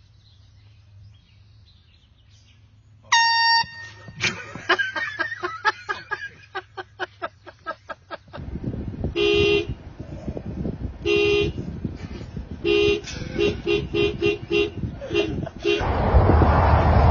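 A handheld air horn gives one short, shrill blast about three seconds in. Later a car horn honks again and again in short beeps, some in quick runs, over a building rumble of engine and road noise. Near the end a loud rushing noise takes over.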